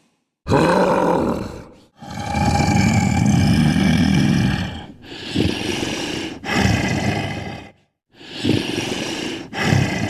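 Homemade Bigfoot sound effect: a series of about six loud, rough roaring calls separated by short silences, the longest held for about three seconds.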